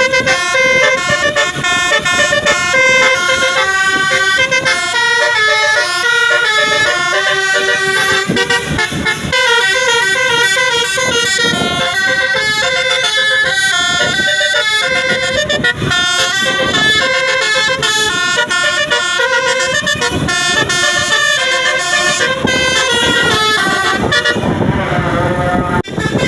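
Tour bus telolet horn, a multi-tone musical air horn, playing a long run of quickly changing notes.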